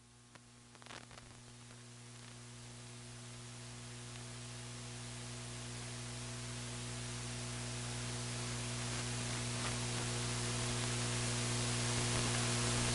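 Electrical hum with static hiss, steady in pitch and getting gradually louder throughout; no race-car engines can be heard.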